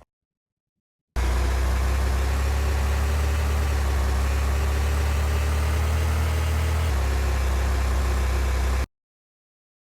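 A vehicle running steadily: a constant low rumble with hiss over it, starting abruptly about a second in and cutting off suddenly near the end.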